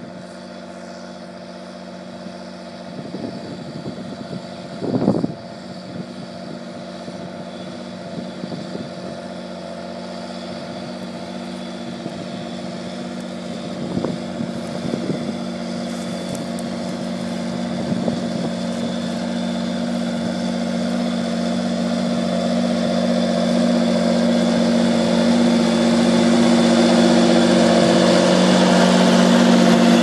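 Large tractor's diesel engine running steadily as it pulls a plough, getting gradually louder as it comes closer. A brief thump about five seconds in.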